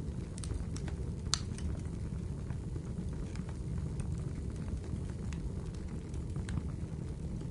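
Crackling fire: sparse, irregular sharp crackles and pops over a steady low background noise.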